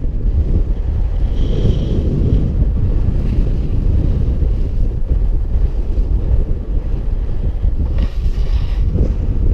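Strong wind buffeting an action camera's microphone on a paragliding launch ridge: a loud, steady, low rumble. A brief higher-pitched sound comes about a second and a half in, and a short hiss near the end.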